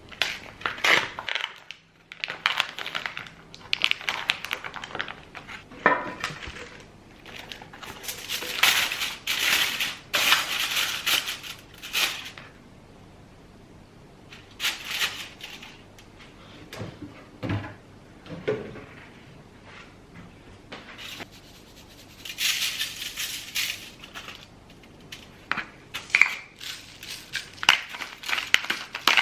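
Kitchen food-preparation sounds: utensils and dishes clinking and ingredients being handled, in irregular bursts of clicks and rustling with short quiet gaps.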